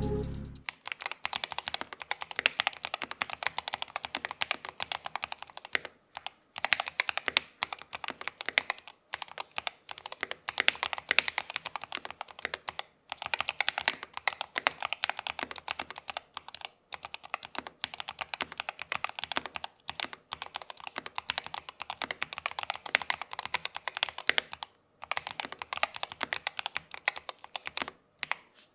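Continuous fast typing on a Keychron K2 HE keyboard with magnetic switches: a dense run of key clicks, broken by brief pauses a few times.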